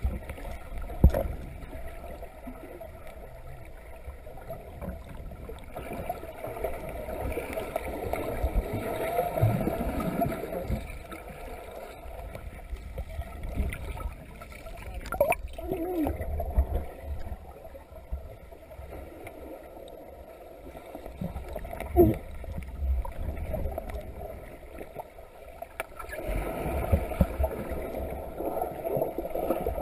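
Muffled sloshing and low rumble of water around a camera held underwater while people swim. The sound swells and fades, with a few sharp knocks several seconds apart.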